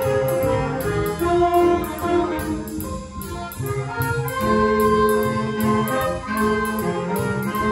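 Student jazz band playing a jazz tune: saxophones and brass hold chords over piano, guitar and drums, with a steady cymbal tick keeping time. The horns drop back briefly about three seconds in, then come in again with held chords.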